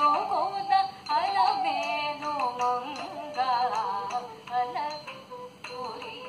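Carnatic vocal music: a singer's ornamented melody, sliding and bending between notes, over a steady drone.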